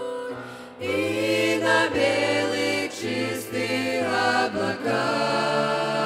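A small mixed group of young women and men singing a Russian-language Christian song in harmony into microphones. The voices come in together about a second in, over a soft instrumental lead-in.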